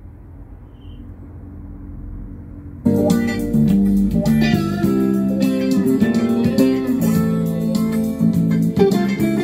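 Guitar music with a strong bass line played through a homemade Bluetooth speaker box with subwoofer, cutting in suddenly about three seconds in. Before it, a low steady hum slowly grows louder.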